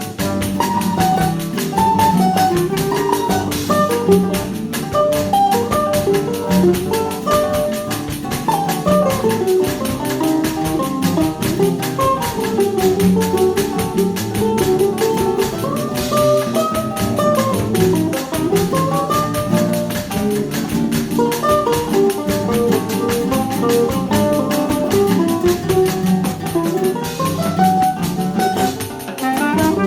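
Choro ensemble playing an instrumental piece: a melody over acoustic guitars, including a seven-string guitar, with tuba bass, pandeiro and drum kit; clarinet and bandolim (mandolin) are in the group.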